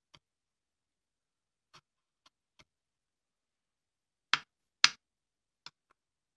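Chisel and wooden guide block knocking on the workpiece while a hidden dovetail joint is pared by hand. A few faint clicks, then two sharp wooden knocks about half a second apart some four and a half seconds in, and a lighter one shortly after.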